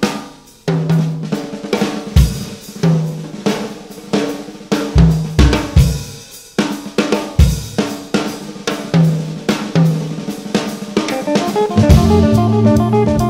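Jazz drum-kit solo: snare, bass drum, hi-hat and cymbals in loose, irregular fills with short ringing low drum notes. Near the end, sustained organ tones come back in under the drums.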